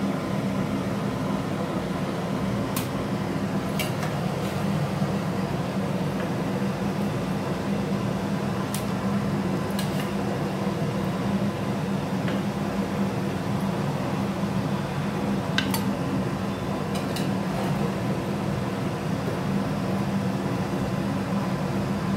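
A steady low machine hum throughout, with a few scattered sharp clinks of a metal ladle against an aluminium pressure cooker as cooked greens are scooped out.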